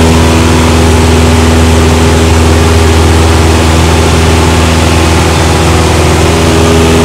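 Cessna light aircraft's engine and propeller droning steadily in flight, heard from inside the cabin.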